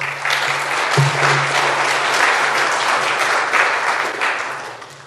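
Audience applauding after a speaker finishes, a dense patter of claps that dies away near the end.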